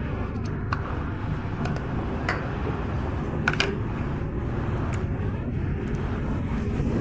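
Steady rumble of street traffic, with a few light clinks of a metal spoon against the ceramic soup bowl.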